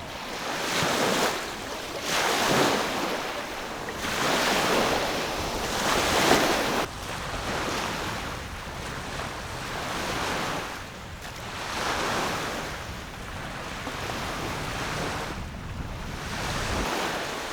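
Small waves washing onto a lake shore, the wash swelling and falling every two seconds or so, with wind.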